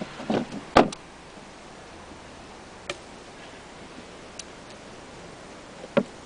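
Knocks and clatter from a wooden toilet seat and lid being handled on a plywood compost-toilet box: a burst of knocks about a second in, a few faint clicks, then another sharp knock near the end as the seat is raised.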